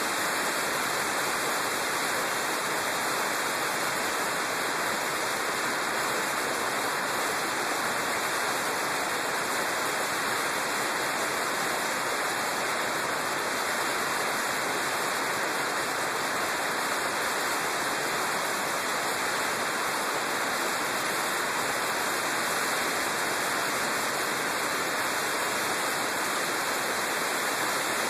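Steady rushing wind noise on the microphone of a camera riding on a motorcycle at road speed, with no distinct engine note.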